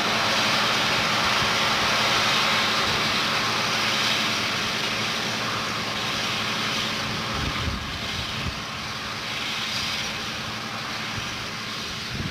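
Allis-Chalmers 8070 tractor's turbocharged six-cylinder diesel running steadily under load while pulling a disc harrow, with a strong steady hiss over it that eases slightly toward the end.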